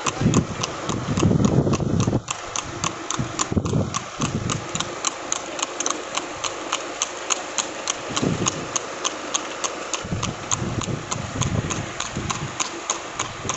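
A horse's hooves clip-clopping on an asphalt road at a steady trot, about three to four beats a second, as it pulls a two-wheeled passenger cart. A low rumble sits under the hoofbeats in the first two seconds.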